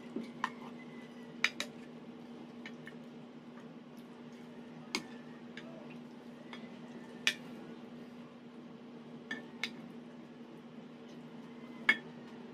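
Spoons and forks clinking against plates during a meal: about ten sharp, irregular clinks, over a steady low hum.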